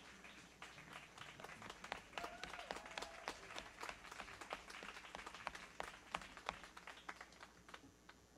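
Audience applauding faintly, the scattered claps thickening through the middle and thinning out near the end.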